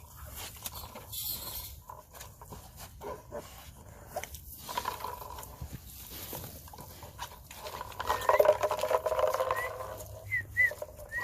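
A 3D-printed PETG noise enrichment toy clattering and rattling as pets nose and knock it about. From about eight seconds in, it is louder, with short squeaky animal calls over the rattling.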